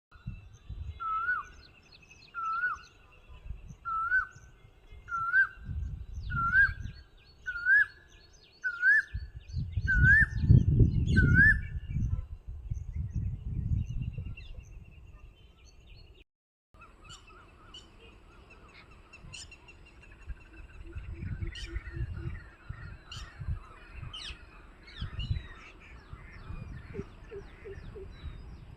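A bird repeats a short upslurred call nine times, about one every second and a quarter, each call a little louder and higher than the last. Low rumbles run under the calls, loudest around the middle. After a brief break, several other birds chirp.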